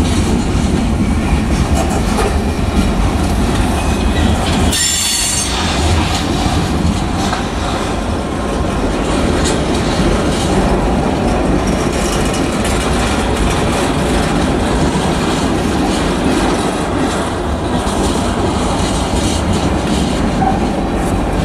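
Freight train tank cars rolling past at close range, a steady loud rumble and clatter of steel wheels on the rails. A brief high wheel squeal about five seconds in.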